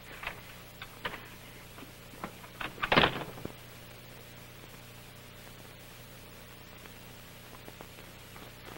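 A few light knocks and clicks, then a door shut with a bang about three seconds in. A steady hiss and low hum of a worn, many-times-copied recording runs beneath.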